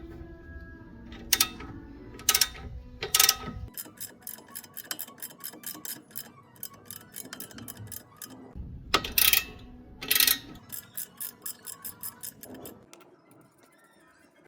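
Hand ratchet wrench clicking in quick runs of about five clicks a second as bolts are turned during the front shock absorber job, with a few louder metallic knocks.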